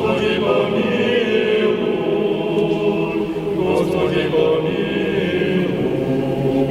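Vocal ensemble singing a slow spiritual song, several voices sustaining long notes together.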